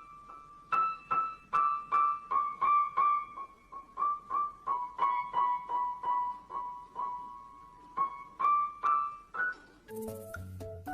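Keyboard or piano playing single high notes one at a time, about three a second. The notes step down a little in pitch through the middle and climb back near the end. A different sound with lower tones comes in about ten seconds in.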